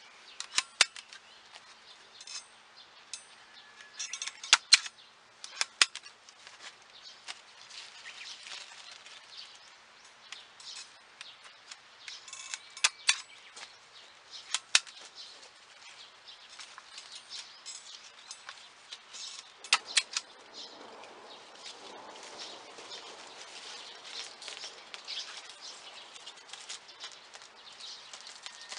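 Sharp snapping clicks of a hand tape-tying tool fastening grapevine shoots to the trellis wires, several a few seconds apart, over a light rustling of the vine's leaves and shoots.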